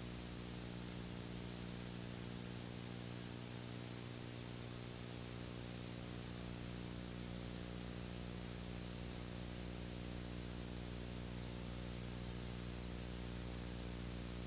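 Steady hiss with a low electrical hum underneath: recording noise, with no other sound.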